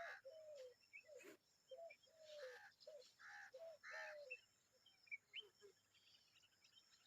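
Common babblers calling: a faint, quick series of short repeated calls, about two a second, thinning to a few weak notes after about four seconds.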